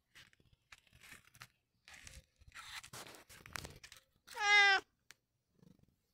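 A domestic cat gives one short, loud meow about four seconds in.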